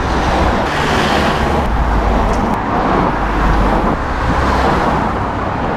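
Road traffic passing close by on a narrow lane: a van and then cars go past one after another, with tyre and engine noise swelling as each one passes.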